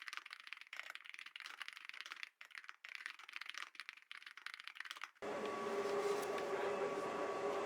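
Typing on a computer keyboard: quick, irregular keystroke clicks. About five seconds in they stop abruptly, and a steady hum with a few faint tones takes over.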